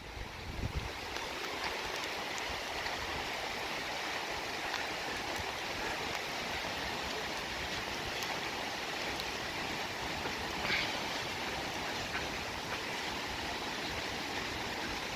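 Heavy rain pouring down steadily, a continuous even hiss as a hurricane's rain sets in.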